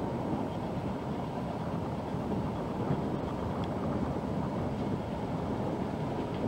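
Steady low rumble of an inland motor freighter passing on the river.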